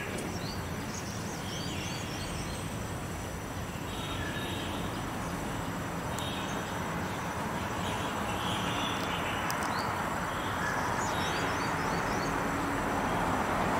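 Steady outdoor background noise, like a distant passing vehicle, slowly swelling toward the end. Faint high bird chirps come about a second in and again near the end.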